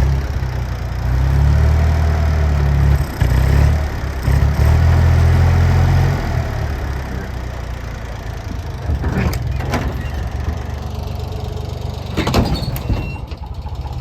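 Engine of a bucket loader running under load, loudest for the first few seconds and then settling to a steadier run. There are two sharp knocks past the middle and a louder knock or clank near the end.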